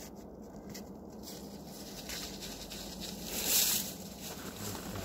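Moose tearing leaves from a birch broom and chewing, the leafy twigs rustling close by, with one louder rustle about three and a half seconds in.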